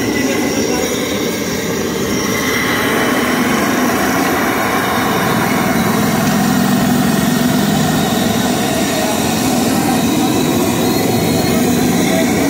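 Whole fish deep-frying in a wide, shallow pan of hot oil: a loud, steady sizzle over a low rumble that grows a little stronger midway.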